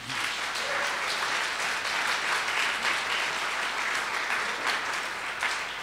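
Audience applauding to welcome a speaker to the lectern, thinning out near the end into a few last claps.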